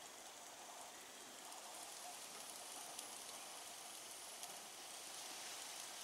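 Faint steady hiss with a few light crackles: shashlik sizzling on metal skewers over low, dying charcoal in a steel mangal.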